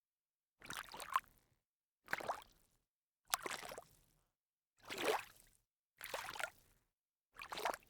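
A sneaker stepping into shallow water: six separate splashy steps, each well under a second, with short silent gaps between them.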